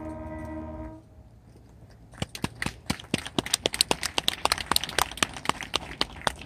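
A marching band holds a final sustained chord that cuts off about a second in. About two seconds in, the audience in the stands breaks into clapping.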